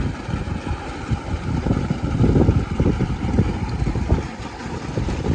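Wind buffeting the microphone in uneven gusts, a low rumbling that swells about two seconds in, over a faint steady rush.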